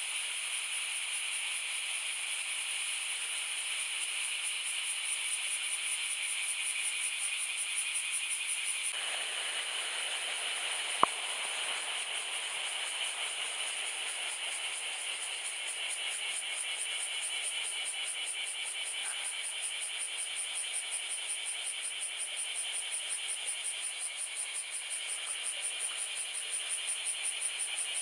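Insects trilling in a steady high-pitched chorus, with one sharp click about eleven seconds in.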